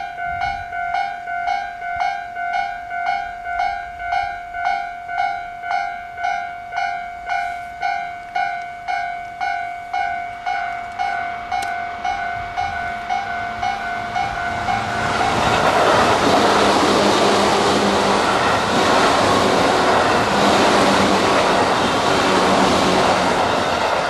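Japanese level-crossing warning bell ringing in steady electronic dings, about two a second. From about fourteen seconds in, a Tobu 8000 series electric train passes over the crossing, its rolling noise rising and covering the bell, then dropping away just before the end.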